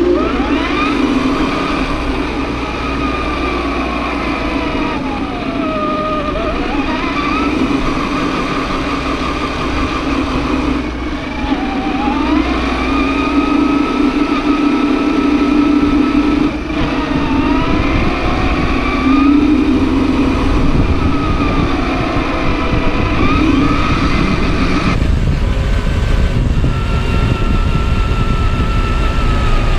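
Electric motor and gear drive of a 1/10-scale RC4WD Desert Runner scale truck whining under throttle. The pitch dips and climbs back again several times as the throttle is eased off and reapplied, over a steady lower hum.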